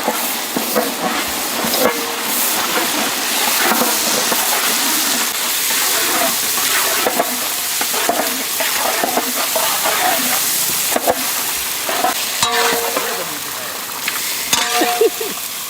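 Marinated country chicken frying in butter, sizzling steadily, while a utensil stirs and scrapes it around the pan with scattered knocks.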